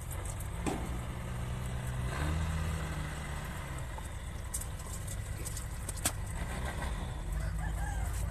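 Low steady engine hum, like an engine idling, with a few sharp clicks of metal parts being handled.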